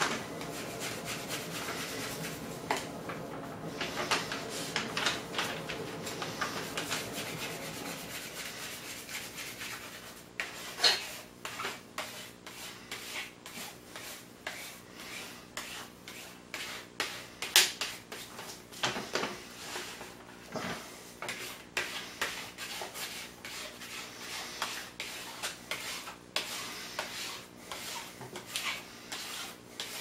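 Plastic scraper rubbing and scraping over a print-surface plate to press it down onto a 3M adhesive sheet, in many short irregular strokes with scuffs and light clicks.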